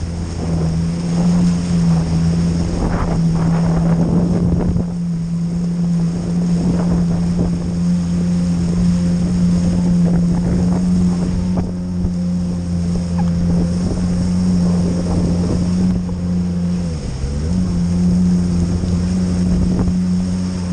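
Jet ski engine running at steady cruising speed, with water rushing and splashing under the hull and wind on the microphone. About seventeen seconds in, the engine note dips briefly and then picks back up.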